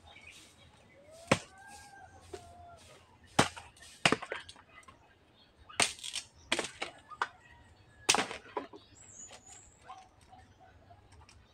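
A bolo (machete) chopping a dry wooden pole: a series of sharp, irregularly spaced cracking strikes, about six hard blows with lighter knocks between.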